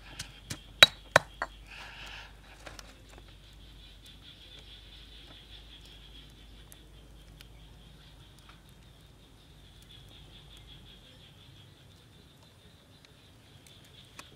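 Stone pestle pounding chopped aromatics in a stone mortar: several sharp strikes in the first second and a half, then the pounding stops. A faint, steady, high-pitched buzz remains.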